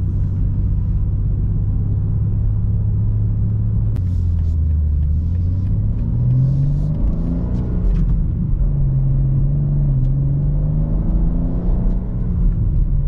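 2023 BMW M2's twin-turbo inline-six running under way, heard from inside the cabin in Sport Plus mode, a steady, somewhat muted low drone. Its pitch dips lower about four seconds in, then climbs about six seconds in as the car accelerates and holds there. Part of this cabin sound is engine sound piped through the car's speakers in Sport Plus.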